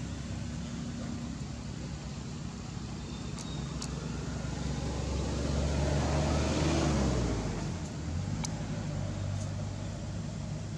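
Steady engine hum, as from a passing motor vehicle, swelling to its loudest a little after the middle and fading again, with a few faint clicks.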